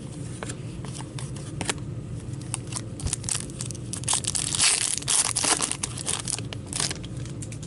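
Trading-card pack wrapper crinkling and tearing while the cards are handled, with scattered clicks and a denser burst of crinkling from about four seconds in that lasts a couple of seconds.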